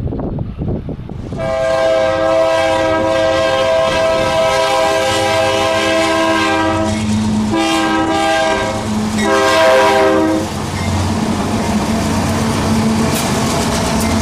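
Freight cars rolling over the rails, then a Ferrosur diesel-electric freight locomotive sounds its multi-note air horn. There is one long blast of about five seconds, then two shorter blasts, and after that the locomotive's diesel engine rumbles steadily as it passes.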